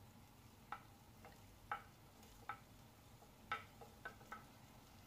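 Faint, irregular light taps, about eight in all, of a wooden spoon scraping ginger-garlic paste off a plate into a stainless steel pot.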